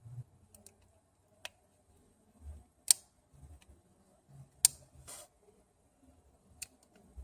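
Scattered sharp clicks and taps of a small repair tool working against an iPhone 6 Plus's internal parts while prying under a part, about six in all, the loudest about three and four and a half seconds in.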